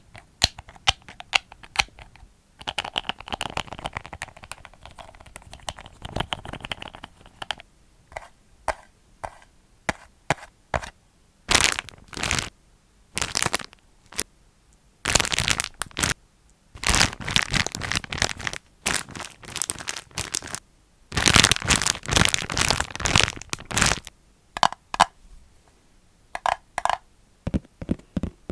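Plastic crinkling and crackling in the hands, with many sharp clicks and cracks. A softer rustle comes early, then dense crackling bursts of about a second each, the longest near the middle of the second half.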